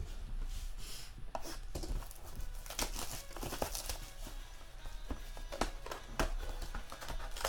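Plastic wrap crinkling and tearing as a sealed trading-card box is unwrapped and opened by hand, with irregular crackles and small handling clicks.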